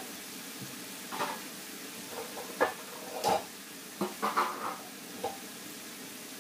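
Sliced green chilies sizzling steadily in oil in a large wok, with a few short metal clinks and scrapes of kitchen utensils scattered across it.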